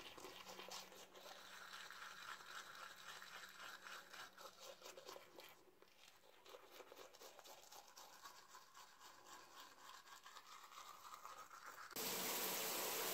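Manual toothbrush brushing teeth: a scratchy run of quick strokes, with a short pause near the middle. Near the end it cuts abruptly to a shower head spraying water, a steady hiss.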